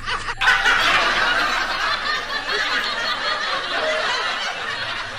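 Laughter from several people in a dense jumble, starting abruptly just under half a second in.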